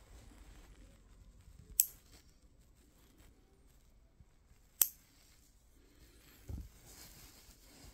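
Metal lever-type nail clipper snapping shut twice on a newborn's fingernails: two sharp clicks about three seconds apart. A soft low thump follows near the end.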